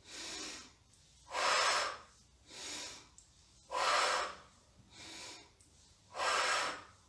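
A woman breathing deeply and audibly in a slow, steady rhythm as part of a breathing exercise for the lungs. A louder breath alternates with a softer one, three times over, about two and a half seconds per cycle.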